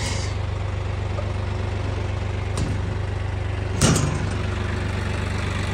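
Tractor diesel engine running steadily while pulling a planter through the field, with a faint click partway through and a sharper knock about four seconds in.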